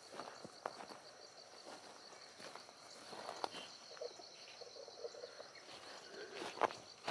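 Insects trilling steadily in a fast, even pulse, with footsteps and grass rustling as someone walks through tall grass, and one sharper thump near the end.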